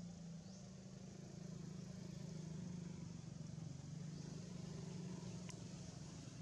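Low, steady drone of a running engine, with faint high chirps repeating every second or two and a single sharp click about five and a half seconds in.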